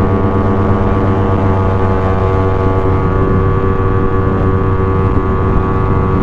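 Motorcycle engine running at a steady cruising speed, its pitch holding constant, with a rumble of wind and road noise.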